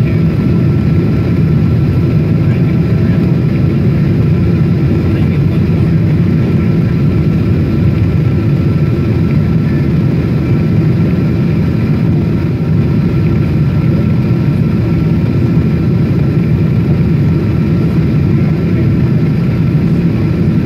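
Jet airliner cabin noise in flight, heard at a window seat over the wing: a steady, loud rumble of the engines and rushing air, with a faint steady high tone above it.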